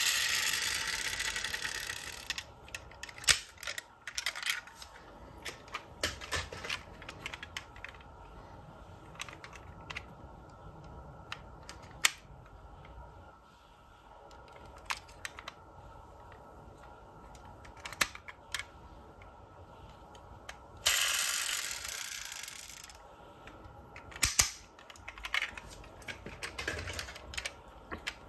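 Small clicks and knocks of die-cast toy cars and their plastic parts being handled, with two rustling stretches of about two seconds, one at the start and one about two-thirds through.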